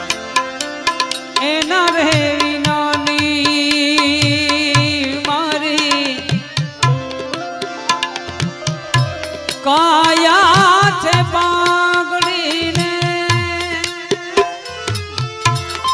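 Instrumental interlude of a Gujarati bhajan: tabla keeps a steady rhythm under a melody of held notes. One melody line wavers with strong vibrato, from about a second and a half in and again around ten seconds, while other notes are held flat, as from a harmonium.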